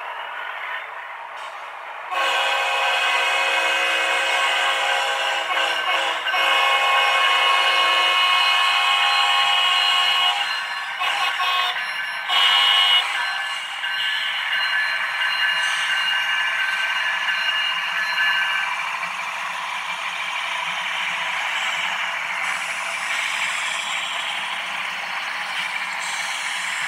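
H0-scale model diesel locomotives' sound-decoder horns sounding, a long multi-note blast from about two seconds in to about ten seconds, a short loud blast near thirteen seconds and another long blast until about eighteen and a half seconds. After that comes the steady running sound of the model train.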